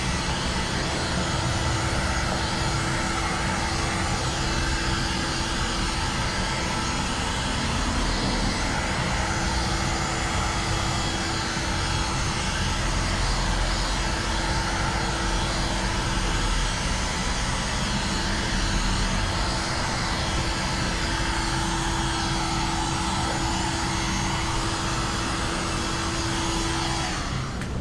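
Electric heat gun running steadily, its fan blowing hard with a steady hum, used to heat-shrink tint film onto a windshield. It shuts off near the end.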